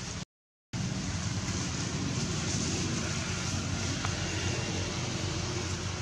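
Steady outdoor background noise, a low rumble with a hiss over it, cut by a brief total dropout of silence about half a second in.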